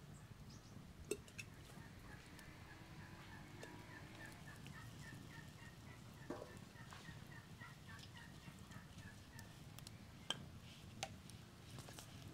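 Faint bird calls: a steady run of short high notes, about three or four a second, for several seconds. A few sharp clicks and taps are louder, one about a second in and two about ten seconds in.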